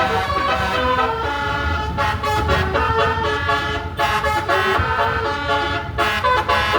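Tour bus's basuri "telolet" multi-tone air horn playing a tune, its notes changing in steps, over a low rumble.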